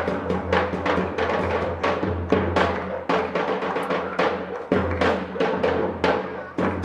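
Chinchinero street one-man band playing: the bass drum on his back struck with mallets and the cymbals clashing in a quick steady beat, about four strokes a second, over a steady low drone. The beat stops near the end.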